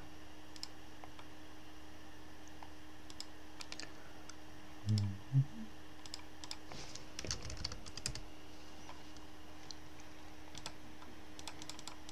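Computer keyboard typing and mouse clicks in scattered short runs of quick clicks, with two low thumps about five seconds in, over a steady faint hum.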